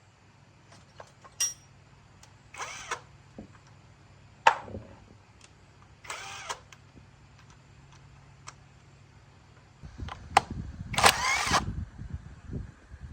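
Small motorbike engine being started: three short attempts, each with a rising whine. Near the end it runs unevenly for about three seconds.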